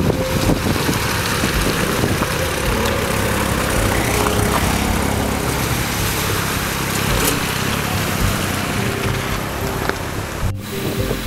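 Off-road 4x4 engines, a Lada Niva among them, running as the vehicles drive slowly through a muddy, water-filled rut, with a steady low rumble under a constant rush of splashing and wind-like noise. The sound breaks off abruptly for an instant about ten and a half seconds in.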